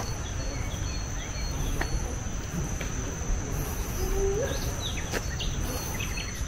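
Tropical forest ambience: a steady high drone of insects with scattered short bird chirps, and a short rising call about four seconds in.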